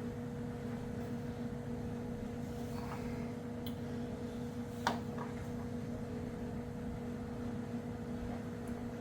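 A steady hum from a running machine, holding one pitch, with a single sharp click about five seconds in and a fainter tick shortly before it.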